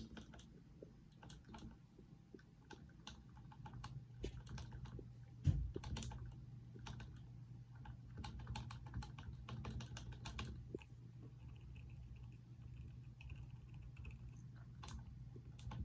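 Keys of a modified Topre Realforce capacitive keyboard being pressed, soft irregular key clicks. A single dull thump about five and a half seconds in is the loudest moment.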